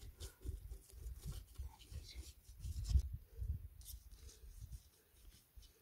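Bare hands smearing and scraping wet mud over the outside of a metal cooking pot: soft, irregular scratchy rubs, with a low wind rumble on the microphone underneath. The mud coats the pot so that it will not blacken over the fire.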